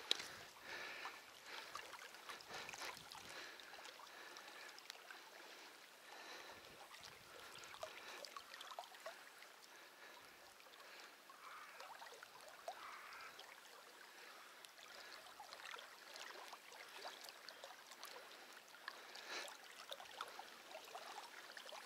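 Faint river-bank ambience: quiet water at the bank, with small scattered ticks and chirps.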